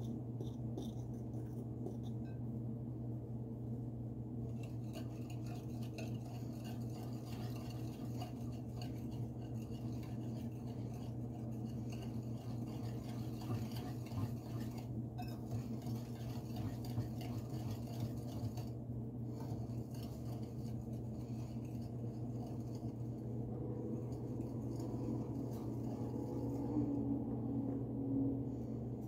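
A hand mixing flour into a wet dough in a glass bowl makes a faint, scratchy rubbing and scraping of fingers and dough against the glass. It sits over a steady low hum.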